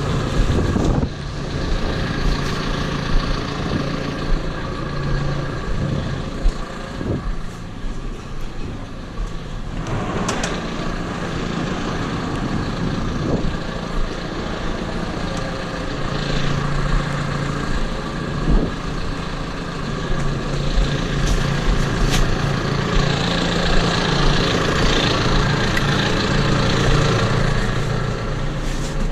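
Tractor engine running steadily, its pitch shifting a little, with a few sharp knocks and clatters.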